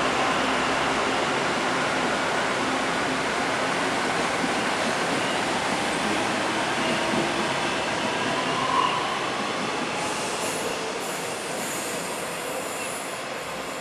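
Taiwan Railways EMU600-series electric multiple unit (EMU605) departing a station and running past: a steady rumble of wheels on rail with motor noise, fading over the last few seconds as the train pulls away.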